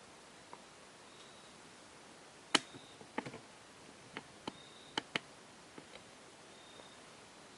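Hunter Biltmore ceiling fan running quietly on its slow low speed. A faint short high squeak comes about every second and a half. A scattered run of sharp clicks and ticks comes in the middle, the first the loudest.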